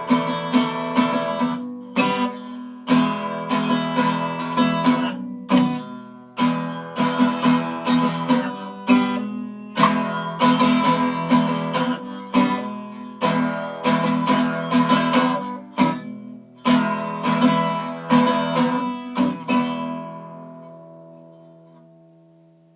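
Acoustic guitar strumming chords, with a last chord left to ring and fade out near the end.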